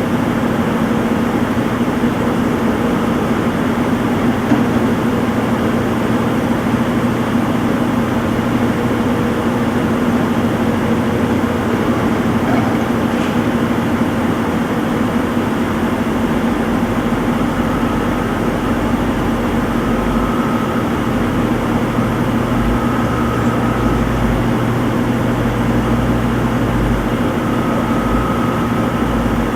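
Front-loading washing machine in its spin cycle: the drum spinning at speed with a steady hum, and a low rumble that comes and goes in the second half.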